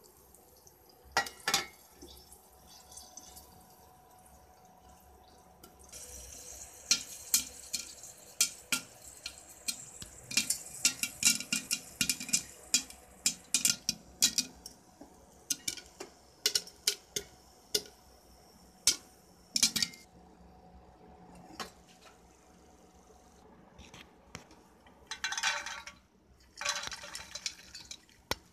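A metal clack near the start as the lid goes on the aluminium pressure cooker. Then popcorn kernels pop inside the covered cooker: sharp pops, many a second at their peak, over a sizzle of hot oil, thinning to occasional pops. Near the end, a rustling clatter as the popped corn is tipped into a steel bowl.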